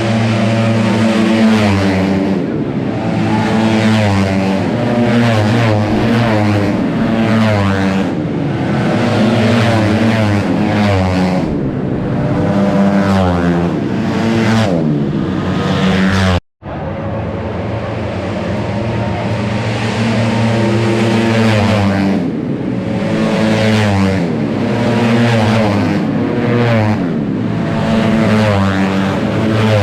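Tuned 155cc automatic scooter race engines running at high revs, their pitch holding near-steady and sliding up and down in turn. The sound cuts out for an instant about sixteen seconds in.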